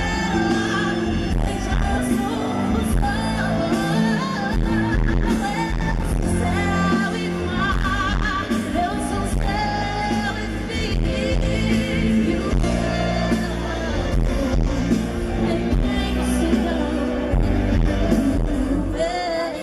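A woman singing live with a pop band, her voice amplified through a concert sound system, holding long notes that bend in pitch.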